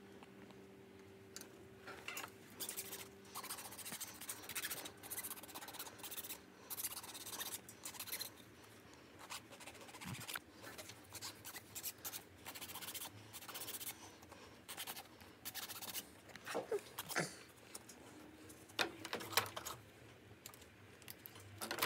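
Irregular scratching and scraping of hand tools working small plastic model-kit parts, with a few louder strokes near the end.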